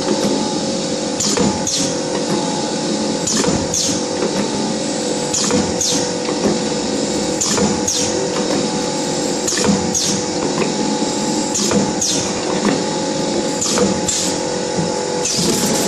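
YX400 wire-cut cookie depositing machine running: a steady motor hum with a pair of sharp clacking strokes, each trailing a short falling hiss, about every two seconds. Each pair marks one depositing and wire-cutting cycle that drops a row of dough pieces onto the tray.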